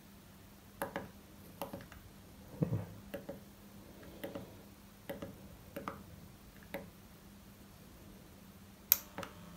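Irregular faint clicks and knocks of test leads being handled, over a faint steady hum, then two sharp clicks close together near the end as a button is pressed on a battery charge/discharge controller module.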